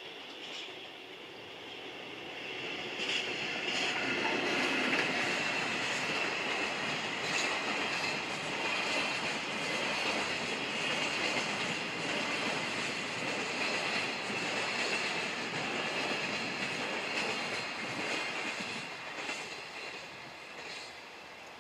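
Container freight train hauled by an ED76 electric locomotive rolling past and away: steady wheel-on-rail noise with a high squeal from the wheels. It swells about three seconds in and fades near the end.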